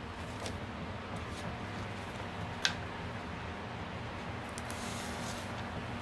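Soft handling noises from a paper leaflet and a cardboard box of velvet pouches: light rustling, one sharp tap about two and a half seconds in, and a longer rustle near the end, over a steady low room hum.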